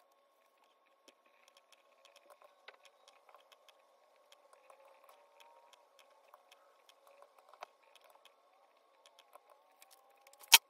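Faint, irregular taps and crinkles from a crumpled paper towel dabbed onto wet watercolour paper to blot the paint, over a faint steady hum, with one sharp click near the end.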